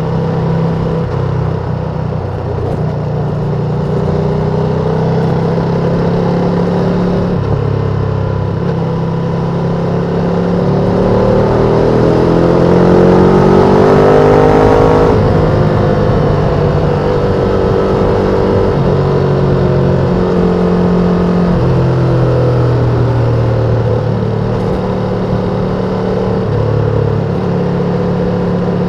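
Ducati Panigale V2's twin-cylinder engine through its stock exhaust, running under way at a steady note, then revving up for a few seconds about halfway through before the pitch falls away suddenly and it settles back to cruising.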